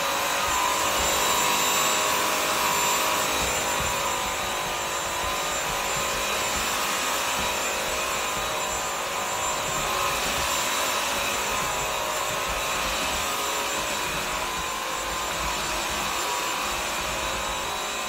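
BISSELL CrossWave Pet Pro wet-dry vacuum mop running steadily in hard-floor mode, its motor giving a steady whine over the rushing of suction. Its brush roll is turning as the head is pushed over tile.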